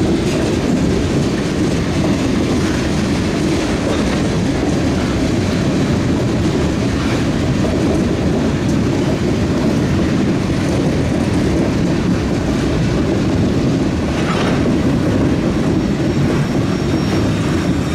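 Freight train tank cars rolling past on steel wheels, a steady rumble with clickety-clack as the wheels run over rail joints and the crossover switches.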